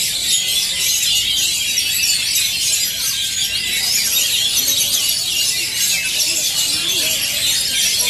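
Many caged oriental magpie-robins (kacer) singing at once: a dense, unbroken chorus of high chirps, trills and quick whistled glides.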